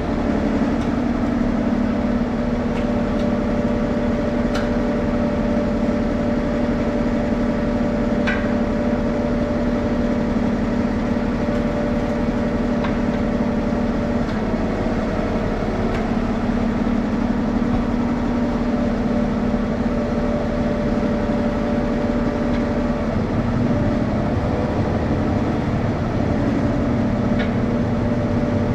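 An engine running steadily at an even speed, a constant mechanical drone, with a few faint clicks over it.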